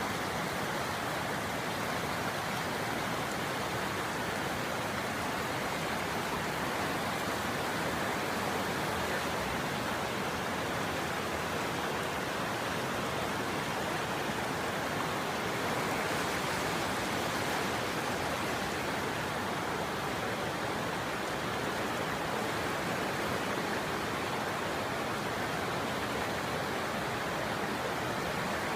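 Scott River in flood, its high water rushing steadily.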